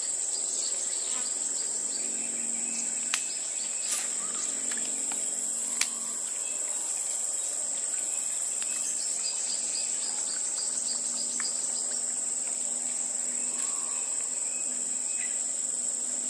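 Steady high-pitched insect chorus, with a few sharp clicks about three, four and six seconds in.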